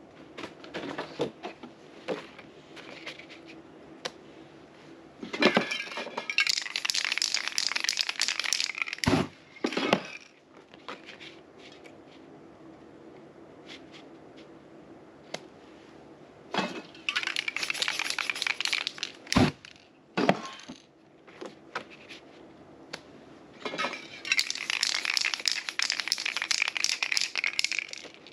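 Aerosol spray paint can hissing in three bursts of a few seconds each, spraying paint through a signature stencil, with sharp knocks and clicks of handling between the bursts.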